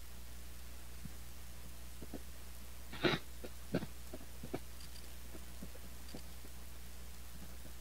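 Steady low electrical hum with a few short, faint clicks and knocks, the loudest about three seconds in.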